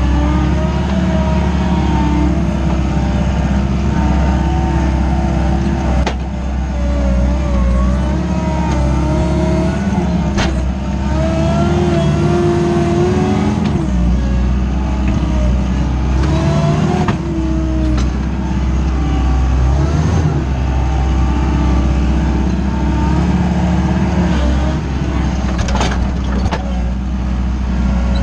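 Wacker Neuson 901S skid-steer loader's 50 kW diesel engine running hard, heard from inside the cab as the machine pushes a bucket of soil. Its note rises and falls with the load, and a few sharp knocks come through.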